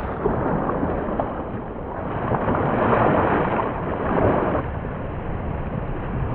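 Sea water rushing along a sailboat's hull, with wind buffeting the microphone; the rush swells for a couple of seconds in the middle.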